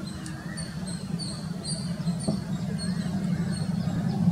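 Distant Airbus A320 jet engines at takeoff power, a low rumble growing steadily louder as the airliner rolls down the runway. Birds chirp over it in short high notes.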